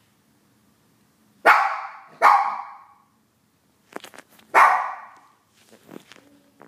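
Shih Tzu barking: three loud single barks, the first two close together and the third about two seconds later, each dying away quickly, with a few faint clicks between them.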